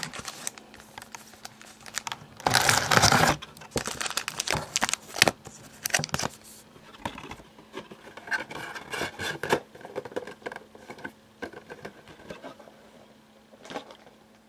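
Packaging of a box of basketball trading cards being handled and torn open by hand: crinkling and tearing, with a loud rustle about two and a half seconds in and scattered crackles after, dying away near the end.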